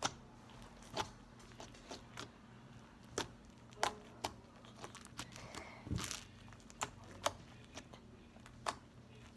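Slime being squeezed and pressed in the hands, popping with a dozen or so small, sharp clicks at irregular intervals; the loudest pop comes about six seconds in.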